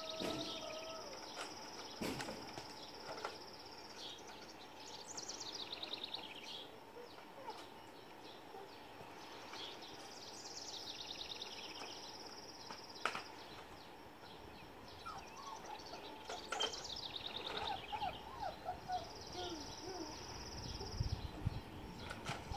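Quiet outdoor ambience of birdsong: a high, steady buzzing trill that comes and goes three times, between repeated phrases of quick descending notes. A few faint squeaks and a couple of light knocks come in as well.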